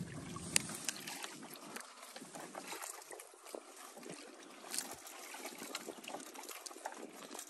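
Water trickling and lapping around a small fishing boat, with scattered light clicks and knocks.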